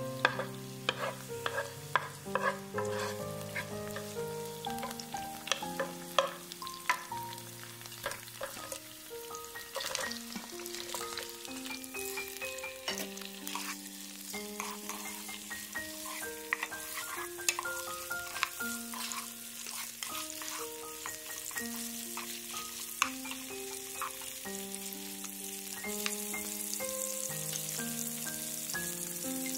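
Shrimp frying in hot oil in a nonstick pan, a steady sizzle with many sharp pops and knocks from the wooden spatula as they are stirred, the sizzle growing louder near the end. Soft background music with a slow melody lies under it.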